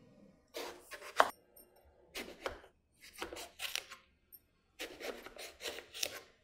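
Chef's knife slicing a whole eggplant into thin rounds on a plastic cutting board: short crisp cutting strokes in four bursts, with a sharp knock of the blade on the board about a second in.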